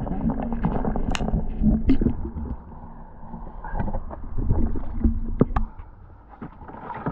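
Water sloshing and splashing at the boat's side with low rumbling buffeting on the camera and a few sharp knocks, as a thorny skate is pulled from the water in a landing net and swung into the boat.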